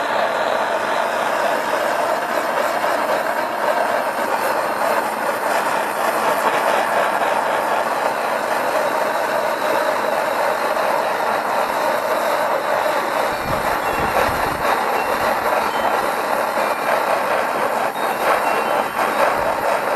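Hose-fed propane torch burning with a steady rushing hiss as its flame is played over a bamboo cane to heat-treat it.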